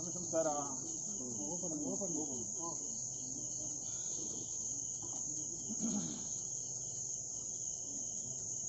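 Steady, high-pitched chirring of night crickets, with faint murmured voices underneath.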